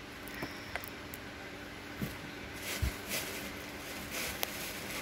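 Quiet handling noises as small cosmetic products and their packaging are moved and set down on a serving tray: a few soft knocks and brief rustles, one low thump about three seconds in, over a faint steady hum.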